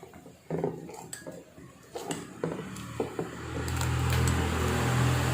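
Metal kitchen utensils and vessels clinking and scraping, then a steady hiss with a low hum setting in about three seconds in.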